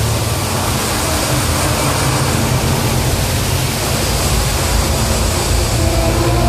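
Water cascading down the sides of a large show fountain, a steady rush, with a low hum underneath.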